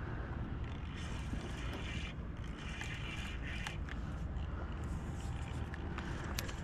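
Fishing reel being wound in repeated bursts of about a second, bringing in a hooked fish on a bent rod, over a steady low rumble of wind on the microphone.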